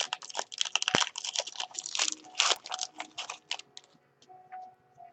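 Crinkling and rustling of trading card packs and cards being handled, a dense run of crackly strokes for about three and a half seconds, then only a few scattered clicks.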